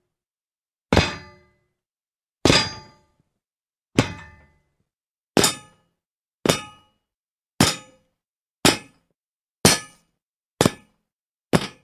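Metal gate clanging under someone jumping on it: about ten separate impacts, each ringing briefly before dying away, coming a little faster toward the end.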